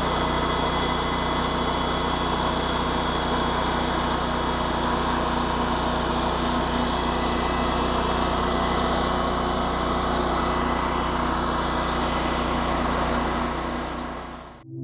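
Small gasoline engine of a portable sawmill running steadily at constant speed, fading out near the end.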